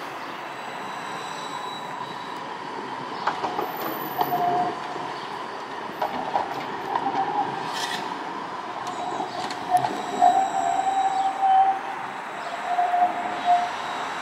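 Siemens Combino low-floor tram running past on street track with a steady whine. From about four seconds in, its wheels squeal on and off against the rails, with a few sharp clicks over the track.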